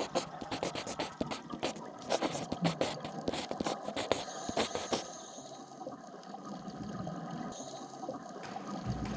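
Underwater sound picked up by a camera's microphone on a reef: a dense, irregular crackle of clicks for about five seconds, then a quieter, steady wash with only a few clicks.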